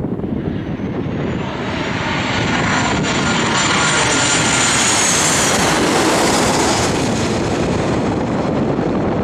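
Boeing 737 airliner passing low overhead on final approach, its twin turbofan engines giving a loud roar with a high whine that rises as it comes over and fades about seven seconds in. Wind buffets the microphone underneath.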